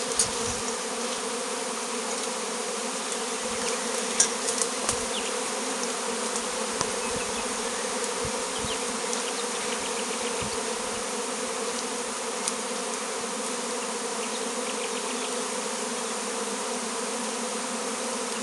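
A swarm of honey bees buzzing in a steady, continuous hum of many wingbeats around its cluster on a branch, as it is being collected into a woven straw basket. A few faint knocks about four seconds in.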